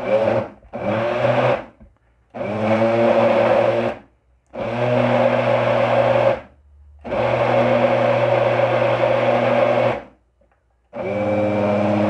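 Britânia BLQ1350 Turbo Inox 1200-watt blender pulsed on and off six times in bursts of about half a second to three seconds, the motor winding up at the start of each. It is churning a thick carrot cake batter with flour in it, a heavy load for a blender, and it copes.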